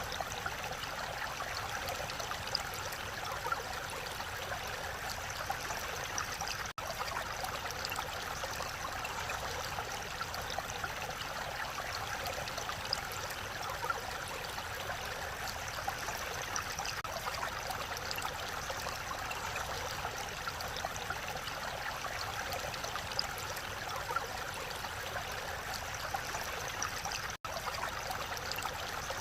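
Mountain valley stream rushing steadily over rocks, with two momentary cuts in the sound.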